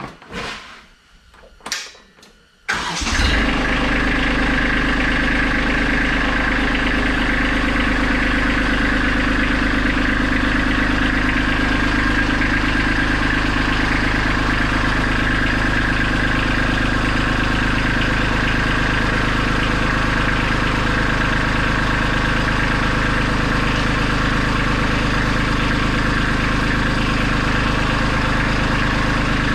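Kubota B2650 compact tractor's three-cylinder diesel engine starting about three seconds in, after a few light knocks, then running steadily at idle.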